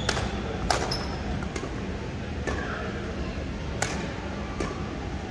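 Badminton rackets striking a shuttlecock during a doubles rally: a few sharp, crisp hits that echo in a large sports hall, the loudest near the start, about a second in and near the end, with faint voices in the background.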